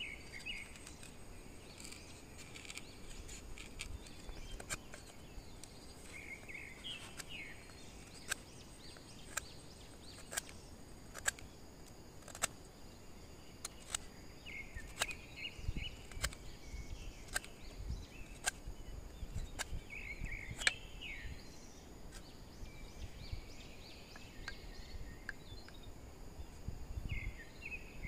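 Sharp taps about once a second from a hand tool working bamboo, over a steady high chirring of insects, with short chicken calls several times.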